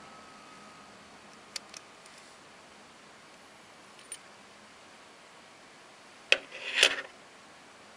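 A stainless steel Cartier Pasha watch handled by hand while its removable grille is taken off. Two light metal clicks come in quick succession, then a single click. Near the end there is a sharp click followed by a brief metallic jangle, the loudest part.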